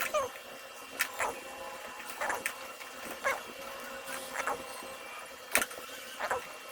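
Enamelled copper magnet wire being pulled by hand through the slots of a jigsaw's armature during rewinding: short scraping rasps and clicks about once a second, some with a quick falling squeak as the wire draws tight.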